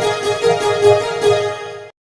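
Background music cue played on a bright keyboard, with quick repeated notes, fading out and stopping just before the end.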